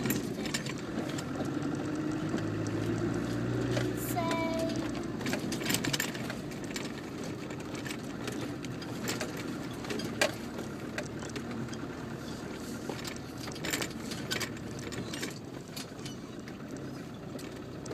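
Land Rover engine running at low speed off-road, with many short knocks and rattles as the vehicle crawls over a rough, rutted green lane.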